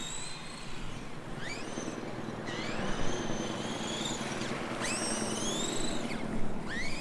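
Small RC car's electric motor whining in repeated bursts, each one sweeping up in pitch as the car accelerates.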